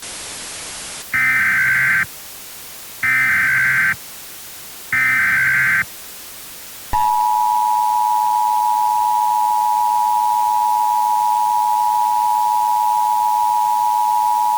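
Emergency Alert System broadcast tones: a second of static hiss, then three short, loud bursts of SAME header data, a screeching digital warble. They are followed about seven seconds in by the steady two-tone EAS attention signal (853 and 960 Hz).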